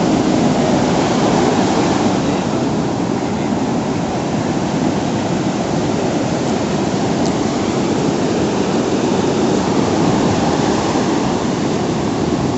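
Ocean surf from a hurricane swell breaking and washing ashore in a steady, unbroken rush of noise.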